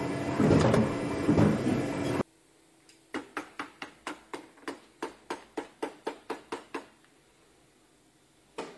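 A loud, steady noise with a hum cuts off abruptly about two seconds in. Then a shoemaker's hammer taps on a shoe sole: a quick, even run of about seventeen strikes at four to five a second, and one more strike near the end.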